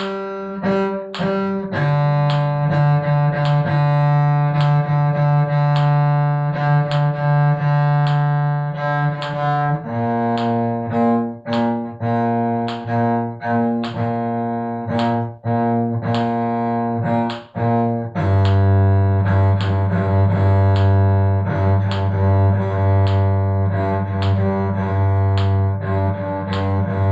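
Cello playing a slow descending G minor arpeggio exercise in triplets. Each note is held about eight seconds under evenly repeated bow strokes, then steps down to the next lower note three times.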